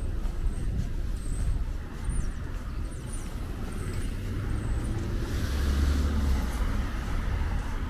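City street traffic: a steady low rumble of passing vehicles, with one going by louder from about five to seven seconds in.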